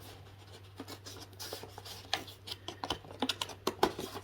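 Cardboard and paper packaging being handled: light rustling and scratching with scattered small clicks, as an advent calendar door is opened and the sample inside is taken out.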